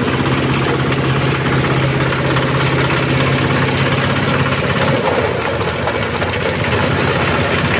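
Multifunction chopping and milling machine running with a steady mechanical hum. About five seconds in the steady hum breaks off and the running turns rougher and less even.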